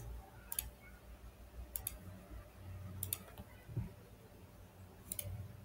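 Computer mouse clicking: four short clusters of clicks spread a second or more apart.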